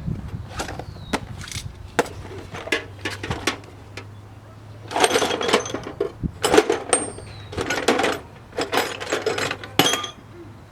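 Metal clicks and knocks from hand tools working on the bolts of a cast-iron power steering pump. About five seconds in come four short bursts of rapid clicking.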